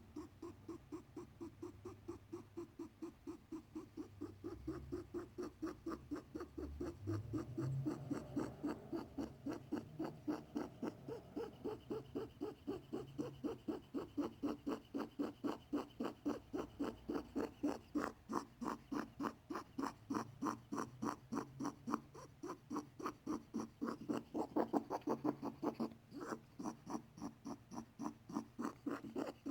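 A pet rabbit making a repeated squeaking, creaking sound, about three times a second, that keeps up evenly throughout. Its owner fears it is a sign of illness; a vet could not find the cause and gave antibiotics just in case.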